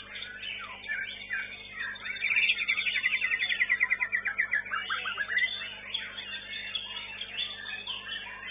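White-rumped shama (murai batu) singing a fast trill of evenly repeated notes, about ten a second, for around three seconds, dropping lower at the end. Behind it is constant chirping and song from many other songbirds.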